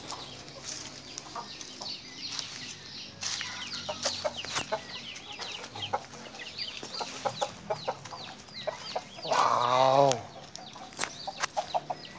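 Birds chirping and clucking: many short, high, falling chirps keep coming, with a man's brief 'wow' near the end.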